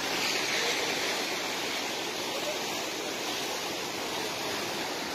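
A swollen river rushing steadily below a bridge: floodwater running high after heavy rain.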